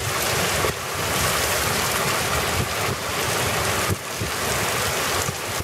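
Heavy rain pouring down steadily in a thunderstorm downpour onto flooded pavement, a dense even hiss, with wind buffeting the microphone in low gusty rumbles.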